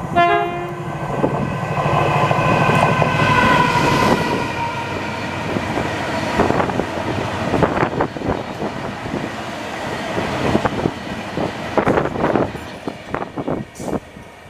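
Diesel train passing through: an engine rumble and a high ringing tone in the first few seconds, then the wheels clicking rapidly over rail joints, fading away near the end.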